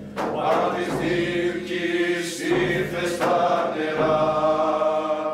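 A chorus of teenage boys singing a slow, chant-like melody in long held notes.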